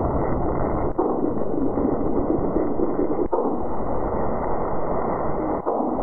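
Seismometer recordings sped up into the audible range, heard as a steady rushing noise. Brief clicks come at about one, three and five and a half seconds in, and a steady low hum joins near the end.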